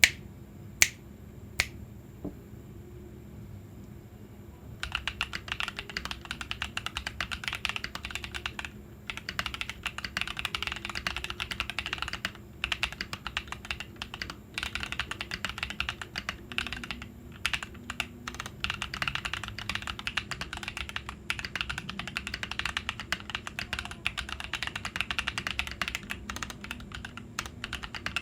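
Typing on a mechanical keyboard fitted with stock Ajazz x Huano Banana tactile switches and PBT double-shot cherry-profile keycaps. A few single sharp clacks come in the first two seconds, then a short pause, then steady fast typing from about five seconds in, with brief breaks.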